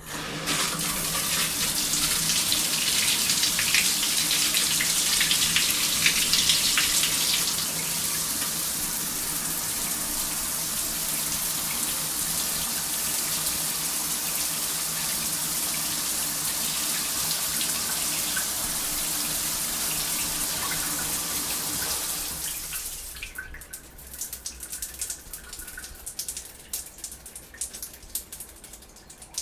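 Shower turned on: the water spray starts suddenly and runs steadily, louder for the first seven or so seconds. About 22 seconds in, the tap is turned off and the flow dies away, leaving irregular dripping.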